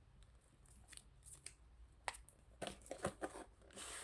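Knife slitting the sealed tab of a small cardboard product box, heard as faint scattered clicks and scratches, with a short rustle of packaging near the end.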